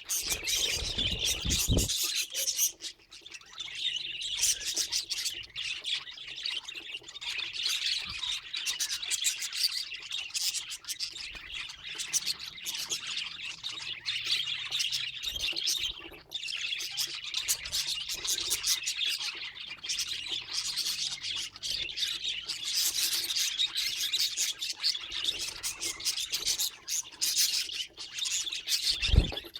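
Budgies chattering: a dense, continuous run of quick, high chirps and warbles. A low rumble sits under it in the first two seconds.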